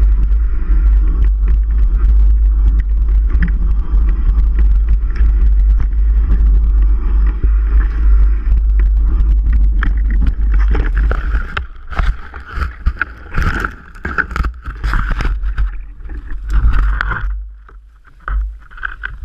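Mountain bike riding: a heavy low rumble of wind on the microphone with the bike rattling over the trail. About eleven seconds in the rumble drops away, leaving a run of clicks and knocks with a ringing tone.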